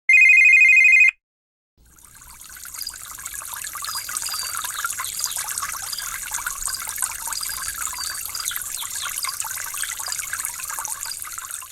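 A loud, steady electronic beep lasting about a second. After a brief gap, running water fades in, trickling like a small stream, with faint short high chirps over it.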